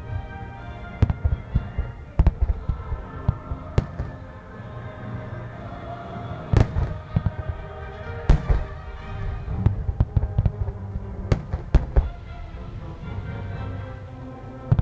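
Aerial fireworks shells bursting in a string of sharp booms at irregular intervals, the two loudest about midway through, with music playing throughout.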